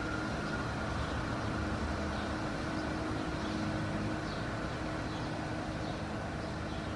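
Motorcycle engine running at a steady speed, its hum mixed with wind and road noise.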